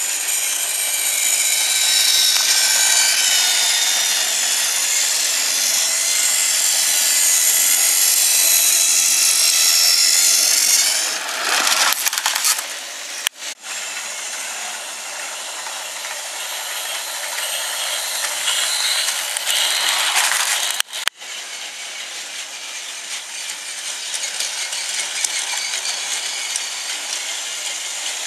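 Small battery motors of motorised Trackmaster toy trains whirring, with gears and plastic wheels rattling along plastic track. A faint steady whine sits in the noise for the first third, and the sound cuts out abruptly for a moment twice, about halfway and about three-quarters of the way through.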